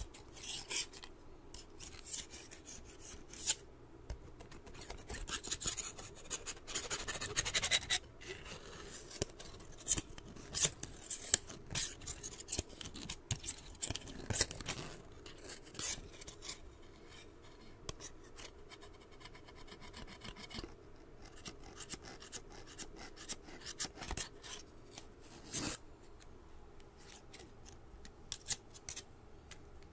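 Scissors worked open and shut close to a microphone: irregular runs of sharp metallic clicks and snips, with a few longer scraping strokes.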